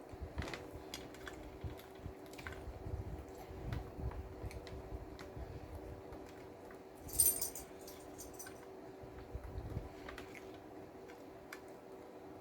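Close-miked chewing of a sandwich, soft wet clicks and jaw thumps. About seven seconds in comes a brief metallic jingle, like cutlery or keys, the loudest sound of the stretch. A faint steady hum lies under it all.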